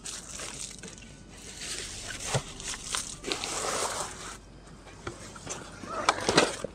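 Rustling of nylon tent fabric and camping gear being handled in a tent doorway, with a few sharp clicks. A cluster of louder knocks comes near the end, as a backpack is pulled out through the opening.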